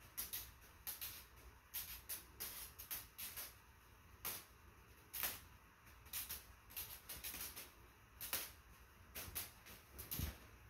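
Rubber-powered model helicopter's rotor blades brushing and ticking against the ceiling: irregular short scratchy scrapes, several a second, with a low thump near the end.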